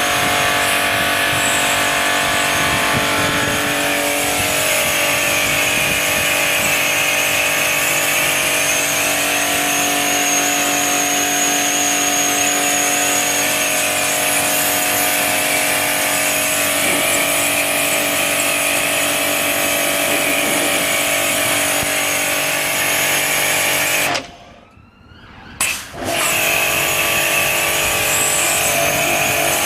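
Karcher 650MB pressure washer running steadily with a motor whine and spray hiss. It cuts out about 24 seconds in and starts again a second or two later.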